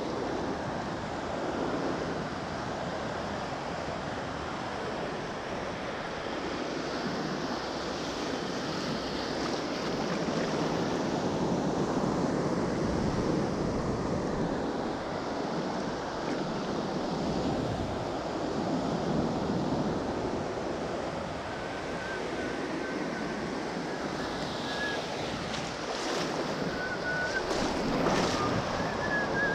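Ocean surf breaking and washing on a beach, with wind buffeting the microphone; the wash rises and falls. Near the end there are a few short clicks and a faint, broken high tone.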